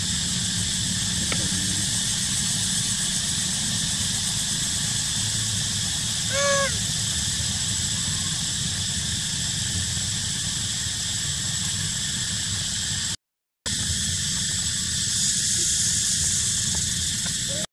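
Steady outdoor forest background noise with a constant thin high whine, broken about six and a half seconds in by one short, high squeal. The sound cuts out completely for about half a second near the end.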